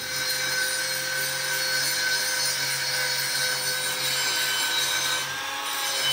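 TIG welding arc on carbon steel pipe with ER70S6 filler wire: a steady buzzing hiss over a low hum, as a fill pass runs at about 150 amps. The hum drops out briefly near the end before picking up again.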